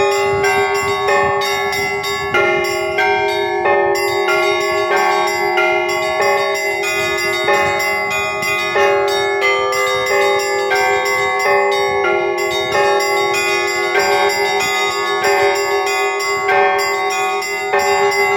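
Church bells ringing: several bells of different pitches struck in quick, irregular succession, about two strokes a second, over a lower bell tone that keeps sounding throughout.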